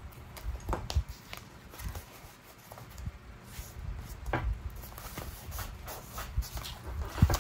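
Paper and craft materials being handled on a work table: light rustling with scattered taps and clicks, the loudest a knock just before the end.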